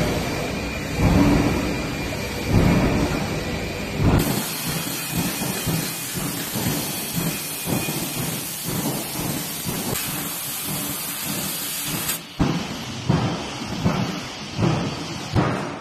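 HSG G6025A laser cutting machine cutting stainless steel sheet: a steady, even hiss from the cutting head starts about four seconds in and cuts off sharply about eight seconds later. Before and after it come low rumbling thuds, about one every second and a half.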